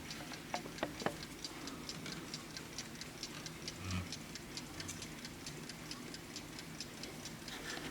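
Vintage German Blessing alarm clock ticking steadily, about five ticks a second, with a few light knocks about a second in.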